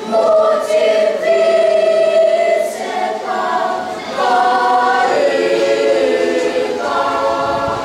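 Children's choir singing in harmony, holding long chords that change every second or two.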